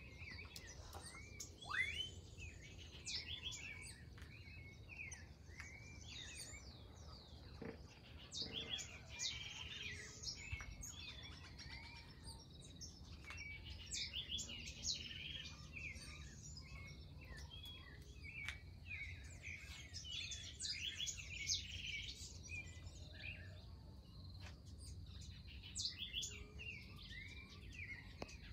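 A dawn chorus: many birds chirping and calling at once, short rising and falling chirps overlapping without pause, over a steady low hum.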